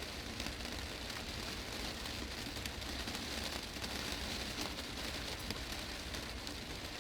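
Heavy rain drumming on a glass greenhouse roof: a steady, dense patter of drops striking the panes.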